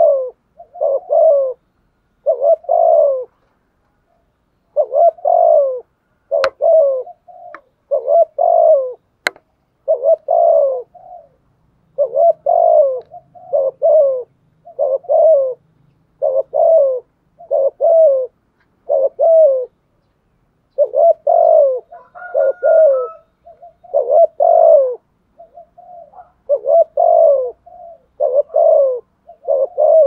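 Spotted dove cooing, a steady series of short repeated coo phrases with brief pauses between them. Two sharp clicks sound about six and nine seconds in.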